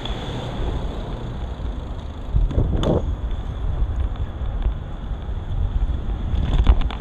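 Wind buffeting the microphone of a bicycle-mounted camera while riding, over a steady low rumble of the ride. A short rising squeak with a click comes about three seconds in, and a few sharp clicks near the end.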